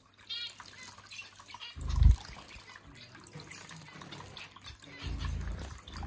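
Small electric bird-bath fountain trickling and splashing into its basin, with a finch giving a short series of quick calls just after the start. A loud low thump comes about two seconds in.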